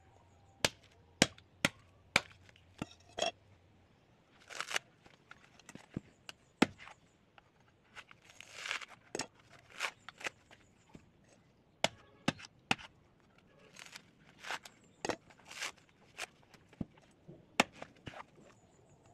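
A bolo knife chopping into a dry coconut's fibrous husk in sharp, irregular strikes. In between, husk fibres are torn away by hand with a rough ripping rustle.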